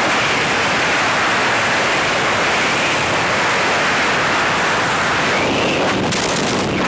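Loud, steady wind noise over the camera microphone during a tandem skydive freefall. Near the end it thins and breaks up as the parachute opens.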